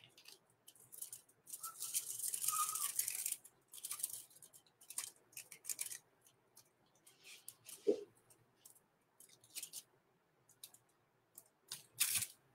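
Faint, intermittent scratchy rustling and light clicks from objects being handled, with a longer rustle about two seconds in, a soft knock near the middle and a short scrape near the end.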